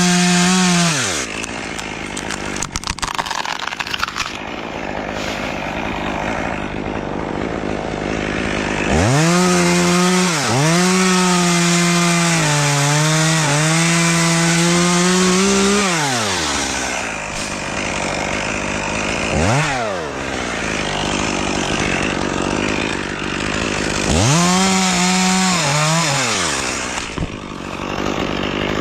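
Chainsaw engine revving to full throttle and holding there while cutting wood, its pitch sagging and wavering as the chain bites, then dropping back between cuts. There are two long cuts, one in the middle and one near the end, with a short rev blip between them.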